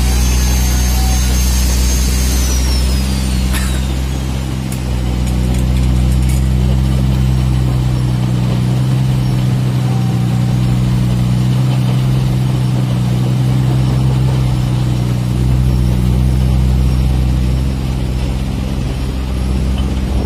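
Caterpillar 336D II hydraulic excavator running while it digs and swings loads of mud, its diesel engine making a steady low sound. A high thin whine falls in pitch and fades away in the first few seconds.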